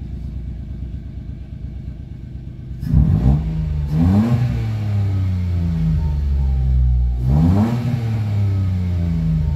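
Mitsubishi Mirage G4's three-cylinder engine idling steadily, then revved three times starting about three seconds in, each rev rising in pitch and dropping back. It runs again after a crank-no-start caused by a stuck throttle body.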